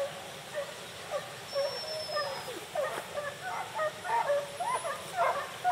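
A pack of hunting dogs baying on the chase of wild boar: many short, overlapping yelps that come thicker and louder toward the end.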